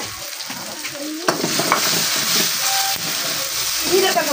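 Maggi noodles and chopped vegetables sizzling in hot ghee in a small wok (kadhai) while a metal spoon stirs them, with a few sharp clacks of the spoon on the pan. The sizzle is quieter at first and swells sharply about a second in.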